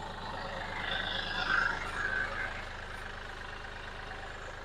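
Kioti CK4020 compact tractor's diesel engine idling steadily, with a brief higher-pitched sound about a second and a half in.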